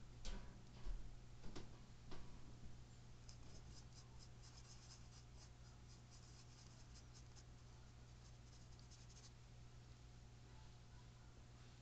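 Faint scratching and scrubbing of a paintbrush's bristles, running as a fine string of ticks for several seconds, after a few handling knocks in the first two seconds. A low steady hum sits underneath.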